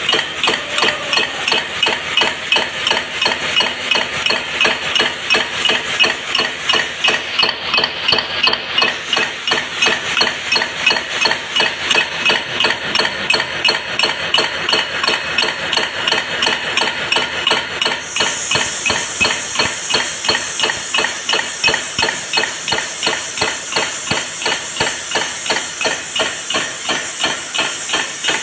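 Steady, even knocking, about three strikes a second, with no pauses. A high hiss joins in about two-thirds of the way through.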